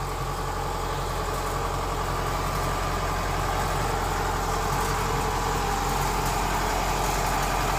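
Kubota DC-105X combine harvester's diesel engine idling steadily, an even low hum with no change in speed.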